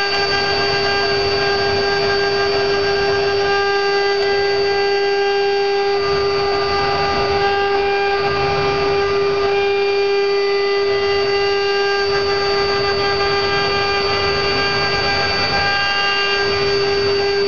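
Woodworking CNC router spindle running at a steady high-pitched whine while its bit carves a relief into a wooden board, with a rough cutting noise underneath.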